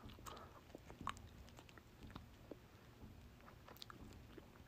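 Near silence: faint room tone with a few soft, scattered small clicks.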